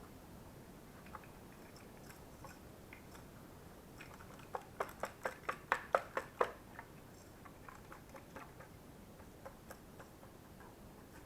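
Clicks and taps from handling the parts of a vacuum cleaner being taken apart: a quick run of about eight sharp clicks, about four a second, near the middle, with scattered lighter clicks around it.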